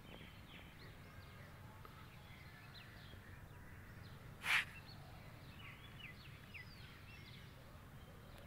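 Faint outdoor ambience with a steady low hum and small birds chirping on and off throughout. About four and a half seconds in there is one short, much louder, harsh call or cry.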